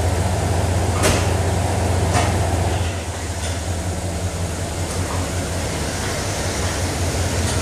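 Ford 351 High Output V8 pickup engine running at a steady idle through its stock muffled exhaust, with a few short clunks over the rumble.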